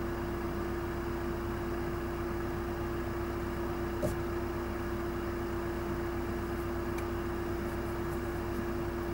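Steady hum with one constant mid-low tone over a faint even hiss and low rumble, and a single short click about four seconds in.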